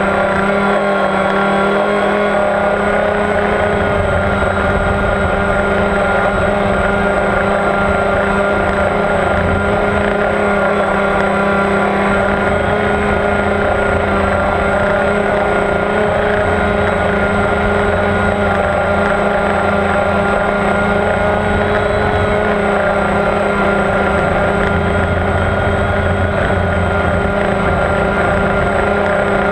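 Motors and propellers of a radio-controlled FPV aircraft, heard from on board, running at a steady pitch in flight, with a low gusty rumble of wind on the microphone.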